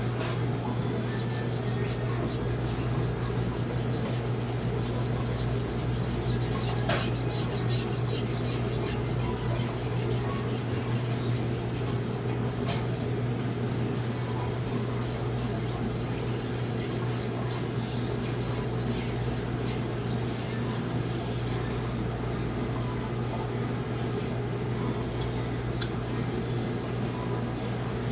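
Blue #2 steel santoku blade stroked repeatedly across a Naniwa Pro 1000 whetstone, a run of short scraping strokes that thins out near the end. A steady low hum runs underneath.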